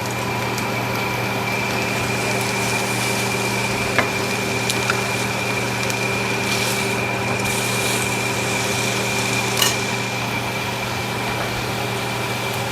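Steady mechanical hum of a fan, with a few light clicks of utensils or dishes, one about four seconds in and another near ten seconds.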